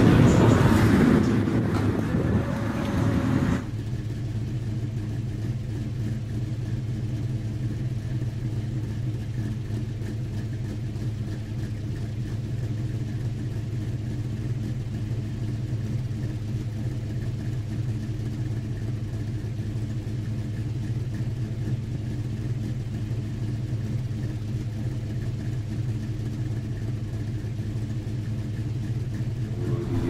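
A louder, busier sound cuts off abruptly about three and a half seconds in. After it comes a steady low engine hum that holds one pitch without revving.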